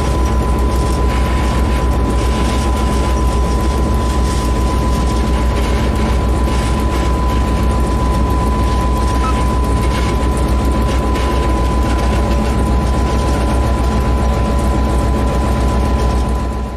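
Diesel locomotive running, heard from inside its cab: a loud, steady rapid low throb with a steady high whine over it, fading out right at the end.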